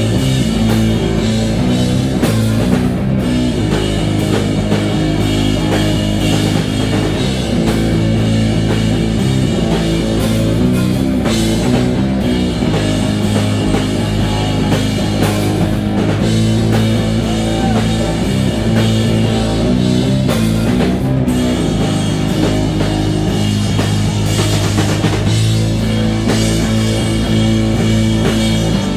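Live rock band playing an instrumental passage: electric guitar and drum kit, loud and continuous, with no singing.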